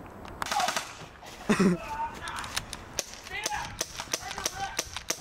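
Gunshots and shouting: a sharp burst of gunfire just after the start, a loud yell about a second and a half in, then a quick string of sharp cracks with yells among them.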